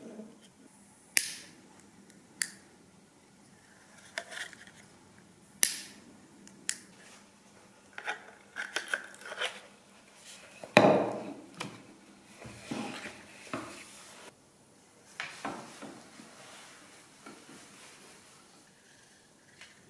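Scattered sharp clicks and taps of small hard parts being handled on a wooden workbench while a kydex axe sheath is assembled. About eleven seconds in comes a louder rubbing, scraping sound as the sheath is worked onto the axe head, followed by softer handling noises.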